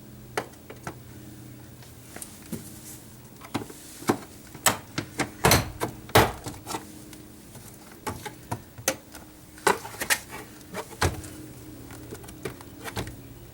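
Plastic retaining clips of a car door panel popping free one after another as a trim clip tool pries the panel away from the door, with scattered clicks and knocks of tool and panel in between; the two loudest snaps come about five and a half and six seconds in.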